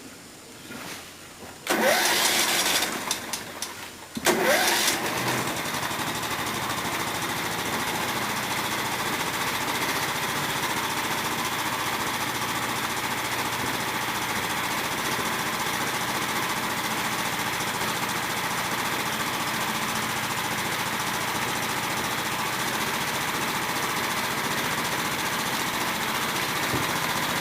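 An engine is started: a loud, uneven first attempt lasts about two seconds, then it catches about four seconds in and runs steadily.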